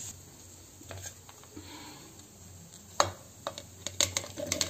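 Light clinks and knocks of kitchen plates and a steel mixer-grinder jar being handled, a few sharp ones, the loudest about three seconds in, over a quiet steady hum.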